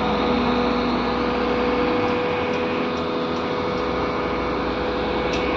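Mobile cranes' diesel engines running steadily under load as they hoist a precast concrete girder, a dense steady drone with a steady whine held through it.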